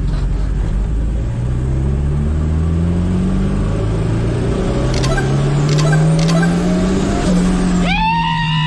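Turbocharged Chevette inline-four engine running, its pitch slowly rising as the revs build. Near the end a loud, wavering high-pitched sound starts over it.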